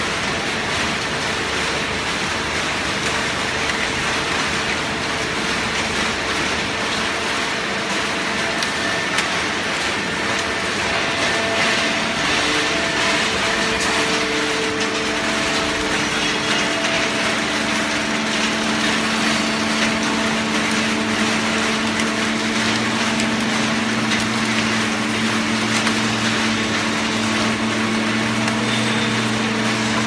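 Horizontal hydraulic baler running: a loud, steady machine noise with a low hum that grows stronger about two-thirds of the way through.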